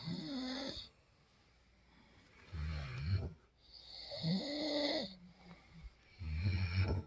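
A person snoring: four separate snoring breaths with short quiet gaps between them, one at the start, one about three seconds in, a longer one around four to five seconds with a pitched tone that rises and then falls, and another near the end.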